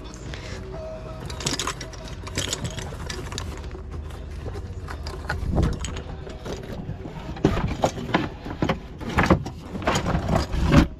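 Knocks, clicks and rattles of gear being handled and set down on a fiberglass sailboat cockpit, with a low steady rumble underneath. The knocking gets busier and louder in the last few seconds.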